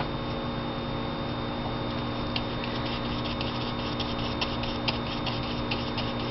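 Steady electrical hum with faint, irregular light ticks from about two seconds in: a paintbrush dabbing paint onto watercolour paper in short jagged strokes.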